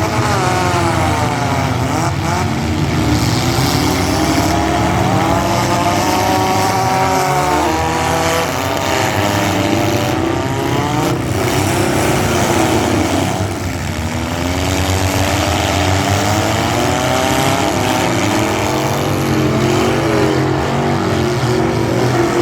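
Several demolition derby street stock cars' engines running and revving together, their pitches rising and falling as they accelerate and back off.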